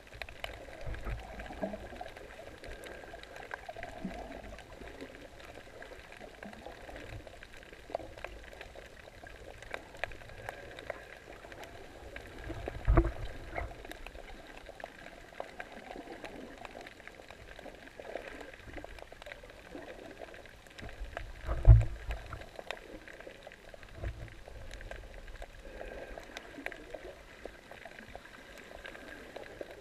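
Underwater sound picked up by a submerged camera while snorkelling: a steady muffled rush and bubbling of water. Two low thumps stand out, one near the middle and a louder one about three-quarters of the way through.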